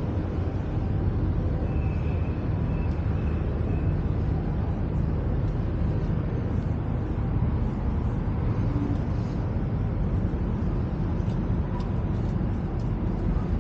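Steady low rumble of city road traffic, with cars and buses running past. About two seconds in, a thin high squeal lasts for about two seconds.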